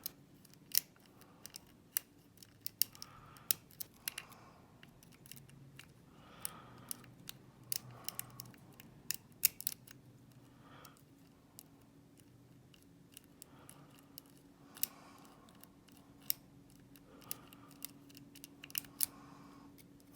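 Small metal clicks and scrapes of a lock pick and tension tool working inside a slider-type lockout tagout padlock, the pick probing the pins. The clicks are sharp and irregular, a couple of dozen spread throughout.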